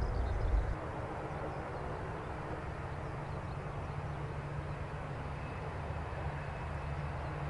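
Boeing 787-8's twin turbofan engines running steadily at low power as it taxis onto the runway to line up. In the first moment, the heavier low rumble of a departing airliner climbing away cuts off abruptly.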